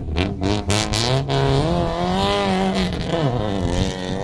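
Modified rally car engine revving hard on a dirt course: quick surges of revs that rise and break in the first second or so, then a longer pull held high that falls away a little after three seconds in.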